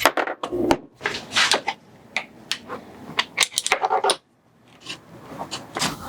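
Bike parts and hand tools being handled: a quick, irregular run of sharp clinks, knocks and scrapes with rubbing in between, pausing briefly a little past the middle.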